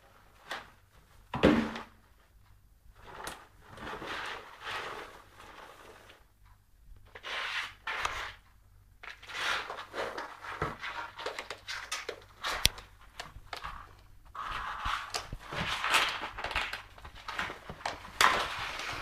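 A cat squeezing and wriggling into a small cardboard carton: irregular scraping and rustling of cardboard and claws, with a few sharp knocks as the box is bumped.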